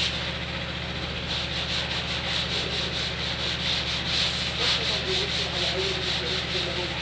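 Hand sanding along the edge of a wooden cabinet door panel: quick, repeated back-and-forth rasping strokes, with a steady low hum underneath.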